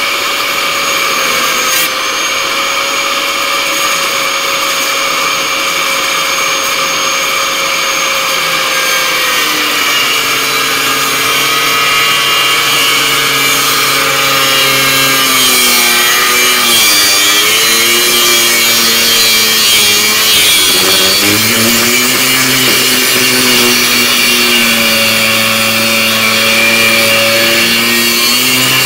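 Angle grinder running with its disc on steel: a steady whine at first, then from about ten seconds in the pitch dips and wavers again and again as the disc is pressed into the metal, cutting and deburring the pieces.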